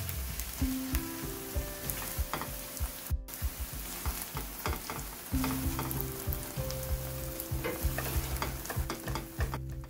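Chive pancake batter sizzling in hot oil in a frying pan, with clicks and scrapes of tongs and a metal spatula spreading it thin.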